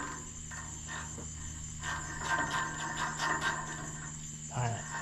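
Insects chirping steadily in the background, with a run of light clicks and clinks about two to three and a half seconds in.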